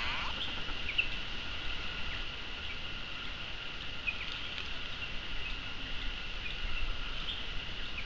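Steady high-pitched insect chorus drone in the forest canopy, with a few brief faint chirps over it.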